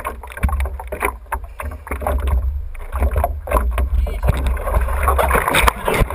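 Ocean water slapping and splashing against a surfboard on choppy swell, close to the water's surface, with an irregular low rumble of water buffeting the board-mounted camera.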